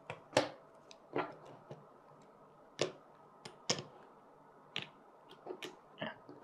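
Cardboard potion tiles being set down and squared into piles on a wooden tabletop: about a dozen irregular taps and clacks.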